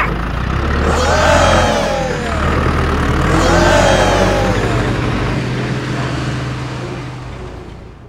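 Tractor engine running with a steady deep hum, revving up and back down twice, about a second in and again at about three and a half seconds, then easing off toward the end.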